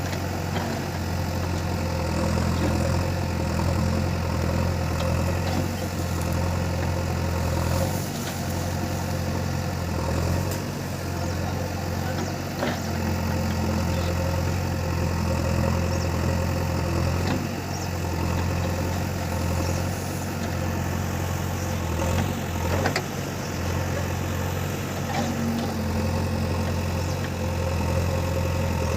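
JCB 3DX backhoe loader's four-cylinder diesel engine running steadily while digging, its note dipping briefly a few times. A few sharp knocks are heard along the way.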